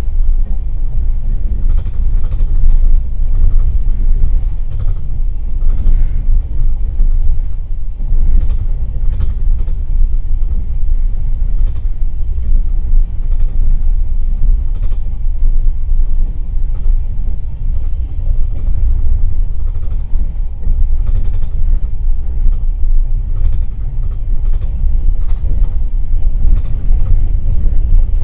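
Passenger train carriage running along the track, heard from inside an open-plan sleeper carriage: a loud, steady low rumble from the wheels and running gear, with scattered short clicks and knocks.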